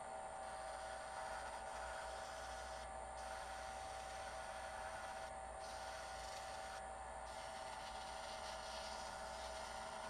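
Wood lathe running at a steady speed with a steady whine, while 120-grit sandpaper is held against the spinning stabilized oak pen blank, adding a faint hiss.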